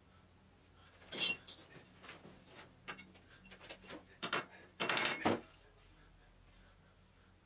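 Handling noises at a workbench: scattered light knocks and clatters, with a short louder scraping clatter about five seconds in.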